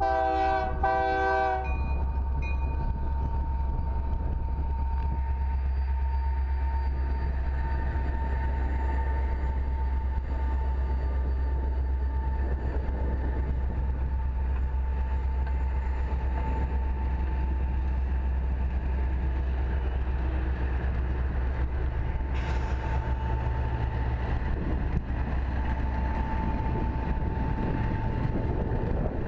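Union Pacific diesel locomotive sounds a short horn blast as it approaches, then the train rolls past with a steady low rumble and a thin steady high tone from the passing wheels and cars.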